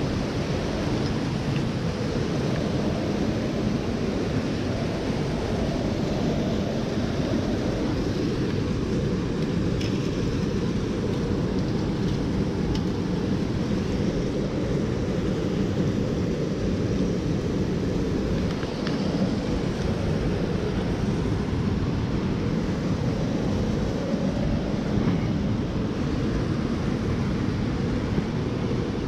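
Mountain stream water rushing steadily, with a deep rumble.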